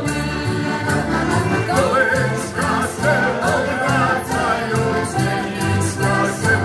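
A heligonka ensemble of diatonic button accordions playing a Slovak folk song, with a stepping bass line under sustained chords and voices singing over it, amplified through stage speakers.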